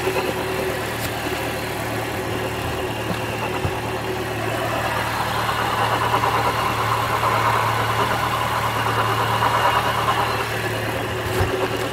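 Jeep Grand Cherokee's 4.0-litre straight-six idling steadily, with the noise of a failed A/C compressor pulley bearing in it; a rougher mid-pitched noise swells in the middle and eases off near the end.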